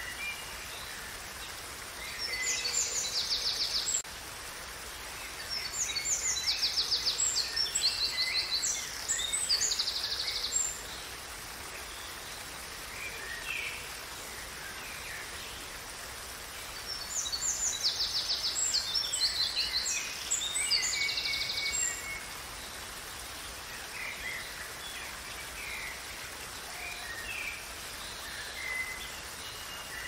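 Steady rush of a waterfall, with a songbird singing fast trilling phrases in three bouts a few seconds long and scattered chirps between them.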